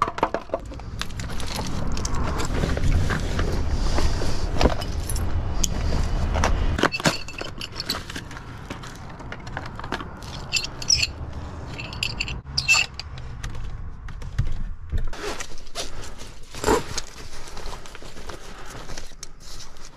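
Handling noises: keys jangling and items being sorted and rummaged through, with plastic packaging rustling and scattered clicks and knocks. A steady low rumble runs for about the first seven seconds, then stops.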